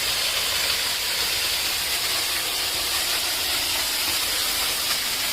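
Waterfall rushing, a steady even hiss with no change in level.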